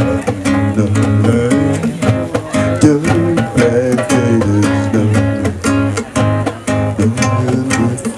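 Live acoustic music from plucked string instruments: a quick picked melody over a steady low note.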